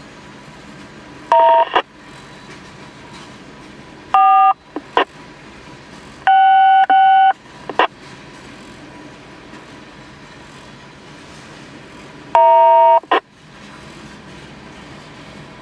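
Railroad radio scanner sounding four short bursts of DTMF touch-tones, the third about a second long, each cut off by a squelch click. Underneath is the steady rumble of freight cars rolling past.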